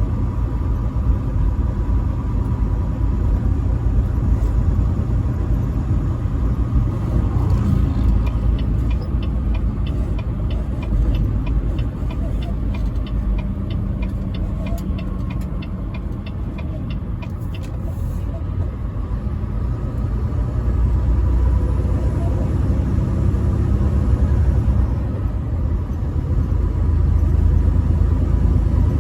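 A truck driving on the highway: a steady low rumble of engine and road noise. Partway through, a regular ticking at about three a second runs for roughly nine seconds, then stops.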